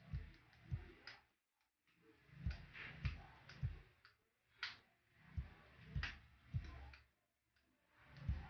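Faint, irregular clicking from a scooter's handlebar light switch and the mini relay as the driving lights are switched on and off, clicks coming roughly every half second to a second with short pauses.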